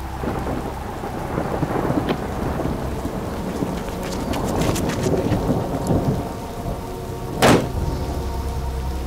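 Heavy rain falling, with rolling thunder, and a single sudden loud bang about seven and a half seconds in.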